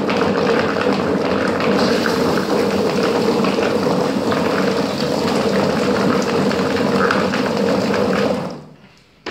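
Mini-330 poultry plucker running: its electric motor hums steadily while the spinning disc tumbles small birds against the rubber plucker fingers, with water sprayed into the drum from a hose. The machine stops about eight seconds in and the sound dies away quickly, followed by a short click near the end.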